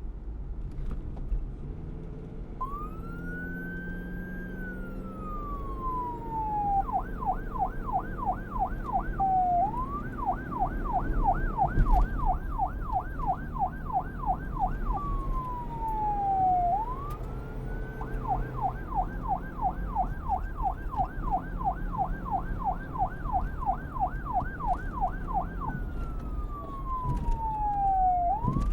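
Police car's electronic siren, starting a couple of seconds in. It alternates a slow wail, rising then falling, with long stretches of fast yelp at several sweeps a second, over a low steady rumble.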